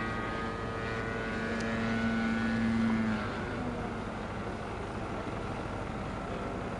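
Engine and propeller of a radio-controlled scale model P-51D Mustang in flight, a steady droning note. It grows louder for about three seconds, then drops to a lower level.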